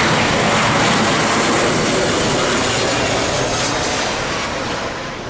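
Boeing 737 jet engines running loud as the airliner passes close by, a steady roar that eases off a little near the end.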